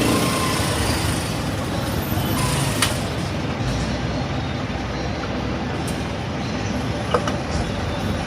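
Steady rumble of road-vehicle noise, with a sharp click about three seconds in and another near the end.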